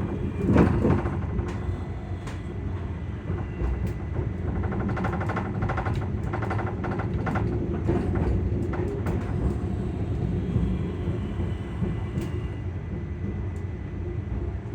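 ScotRail Class 385 electric multiple unit running, heard from inside the carriage: a steady low rumble with frequent short clicks and stretches of rapid rattling.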